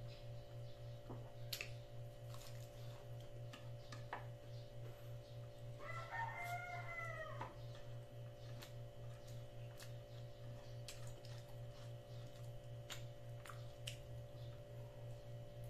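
A rooster crowing once, about six seconds in, lasting about a second and a half, over a steady low hum and scattered faint clicks.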